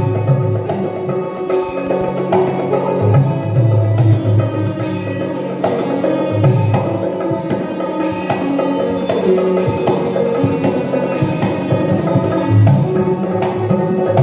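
Recorded music with a repeating percussion rhythm and heavy bass, played loud through a PA sound system during a sound check.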